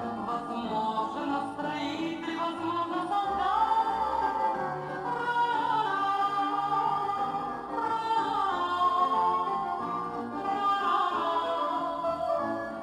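Music from a song, with a melody line that glides up and down over an accompaniment and no words sung.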